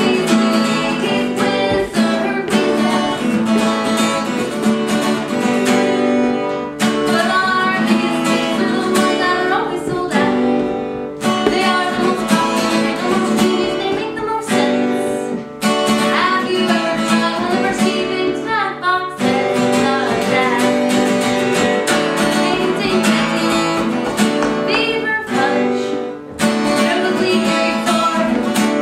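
A band's song with strummed guitar and singing.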